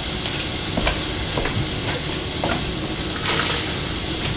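Red guajillo chile sauce frying in hot oil in a saucepan: a steady sizzling hiss with a few light clicks and pops.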